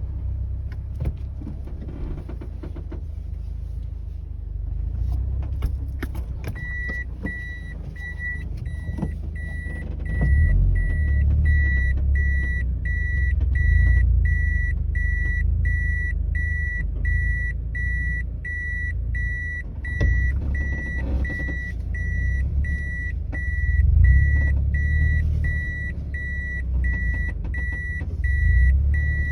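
Toyota 86 at low speed with the steering turned: irregular sharp cracking clicks from the chassis over a steady low rumble. This is the abnormal noise that persists even with the stock suspension refitted, cause unknown. From about six seconds in, an in-car warning chime beeps steadily at an even rate.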